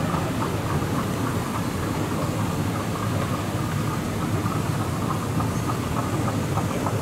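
Airport moving walkway running: a steady low mechanical rumble with a faint hum and light, regular clicking, over the general noise of a terminal concourse.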